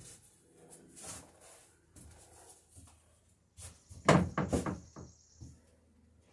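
Wooden boat-building stock being handled and set against the workbench: a quick cluster of wooden knocks about four seconds in, with a brief high squeak as wood rubs, amid a few faint scattered taps.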